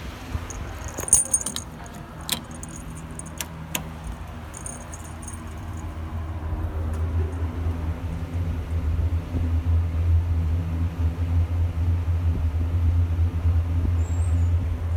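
Small Mitsubishi Electric elevator car with a propeller-type roof fan: a steady low hum from the fan and car. About a second in come several sharp clicks and a brief metallic rattle. From about seven seconds in the hum and running noise grow louder as the car travels down from the third floor to the first.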